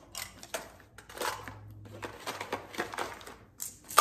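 Small plastic items such as lip balm tubes and a lighter clicking and rustling as they are packed by hand into a fabric organizer pouch, with a series of short, irregular handling noises and a louder knock at the very end.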